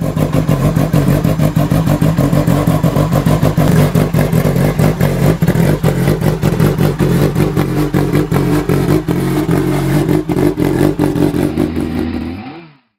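Yamaha YZF-R7 (OW02) 749 cc inline-four sportbike engine running steadily on its stand with a sharp, crackling exhaust note. It fades out near the end.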